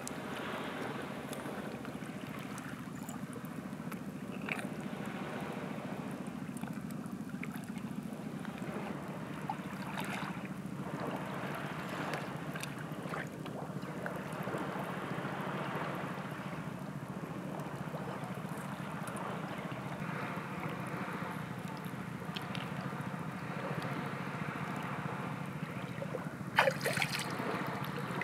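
Calm seawater lapping and trickling at the shoreline while a wet, raw squid is pulled apart by hand, with a steady low hum underneath. A couple of sharp, louder sounds come near the end.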